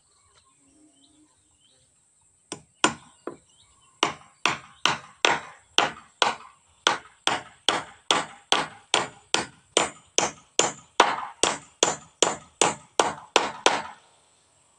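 Hammer striking a wooden formwork plank, driving nails: a few scattered blows, then a steady run of about two to three blows a second that stops just before the end.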